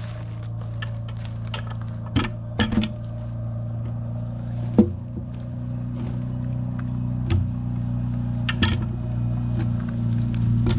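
Wooden-handled cant hook knocking and clunking against a log as it is levered and rolled, a handful of sharp knocks, the loudest about five seconds in. A steady low hum runs underneath.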